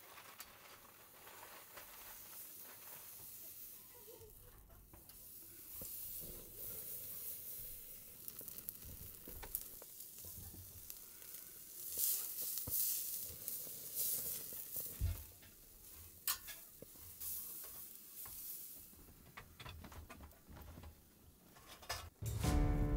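Beef steak sizzling on a wire grill grate over glowing charcoal, louder in stretches, with scattered sharp clicks.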